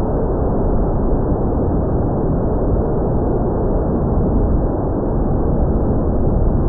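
Steady rush of wind buffeting the microphone, a dense, even noise heaviest in the low end with no clear motor tone through it.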